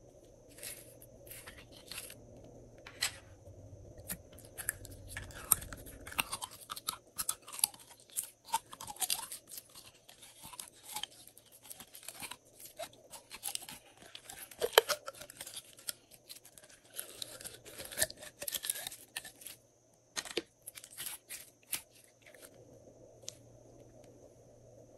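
Glossy slime being kneaded and pressed by hand, making a fast, irregular run of sticky clicks, crackles and small pops. There is a short break about twenty seconds in, and it thins out near the end.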